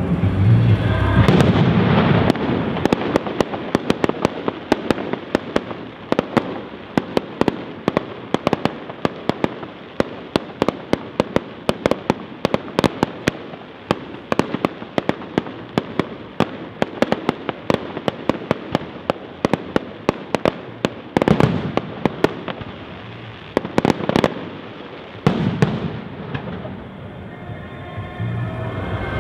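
Fireworks display: a long, dense run of sharp crackling pops from bursting shells, then a few heavier shell bursts with a longer tail about two-thirds of the way through.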